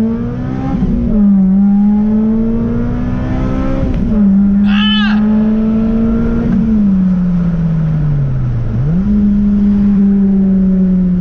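Honda Civic Si's K20 four-cylinder with the muffler deleted, heard from inside the cabin under hard acceleration. The engine note climbs and drops sharply at two upshifts, about a second in and about four seconds in. It then falls away as the car slows, jumps back up about nine seconds in, and holds steady.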